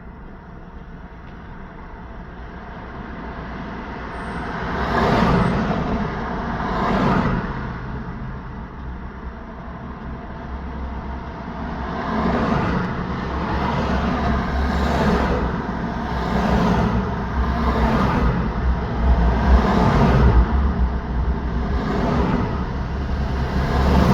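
Road traffic: a string of vehicles passing one after another, each swelling and fading as it goes by. It starts quiet, with the first passes about five seconds in, and grows busier, with a heavier low rumble through the second half.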